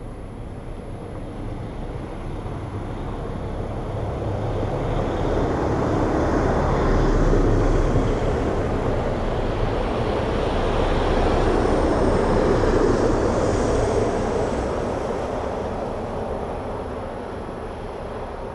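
A passing vehicle: a rushing noise that builds over several seconds, peaks twice near the middle, and fades away.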